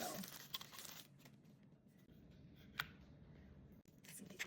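Faint rustling and handling of a new remote doorbell and its packaging, with a sharp click a little before three seconds in.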